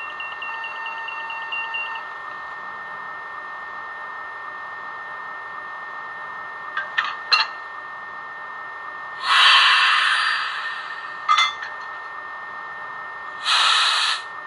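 Sound decoder of a Roco HO-scale model of the BB 22347 electric locomotive playing its standing sounds through the model's small speaker, over a steady hum. A pulsing beep sounds for the first two seconds, then a few short clicks. Two loud air-release hisses follow, the first about nine seconds in and lasting about a second, the second shorter near the end.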